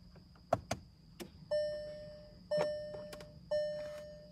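A few sharp clicks as the ignition is switched on, then the car's warning chime striking about once a second, three times, each ding fading away.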